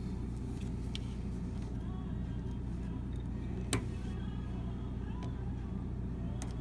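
Electric water heater (model RE350T6) humming with a steady low electrical buzz, the sign of a bad heating element. A sharp click comes about halfway through and another near the end.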